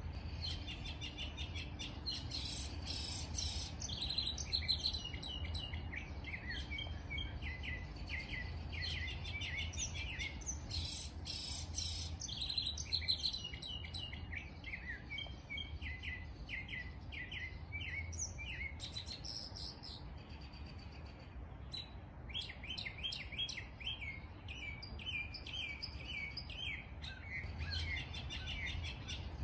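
Small songbirds chirping and singing in the trees, many short high notes and trills overlapping in a continuous chorus that thins briefly about two-thirds of the way through.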